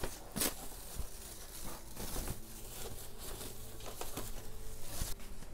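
Thin foam packing wrap rustling and crinkling as hands pull it off a flat table panel, with a few light clicks and knocks.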